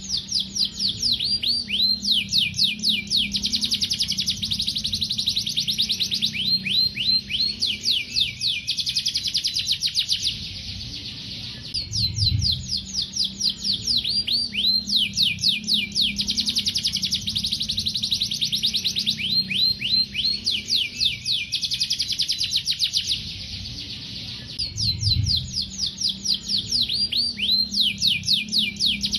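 Domestic canary singing: long rolling trills of rapid, quickly repeated falling notes, in three long phrases broken by short pauses.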